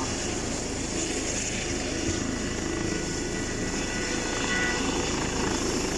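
Helicopter running on the ground close by with its rotor turning: a loud, steady rotor rumble with a faint steady turbine whine above it.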